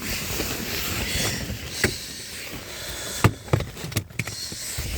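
Hands feeling around a car's plastic interior trim: rustling and scraping, with a few sharp clicks and knocks about two and three and a half seconds in.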